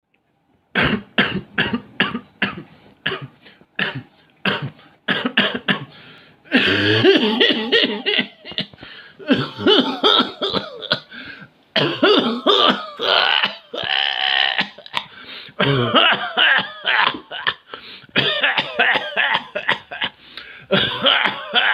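A person coughing hard and repeatedly. It starts as a quick string of short coughs, two or three a second, and from about six seconds in turns into longer hacking fits run together, with strained voiced sounds between them.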